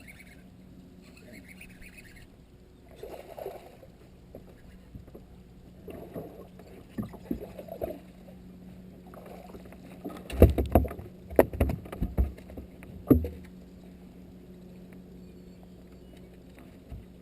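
Handling noise on a bass boat: a steady low hum with a few soft rustles, then a run of heavy knocks and thumps on the hull or deck about ten to thirteen seconds in.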